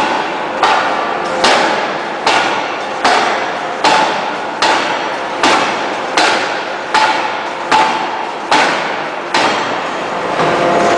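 Open-die forging hammer striking a glowing steel shaft forging in a steady run of blows, about five every four seconds. Each blow is a sharp bang followed by a brief metallic ring.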